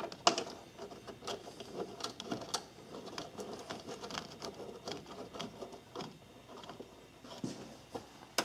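Irregular light clicks, taps and rattles of hands fitting a plastic air cleaner box into place and setting its mounting bolts in an engine bay.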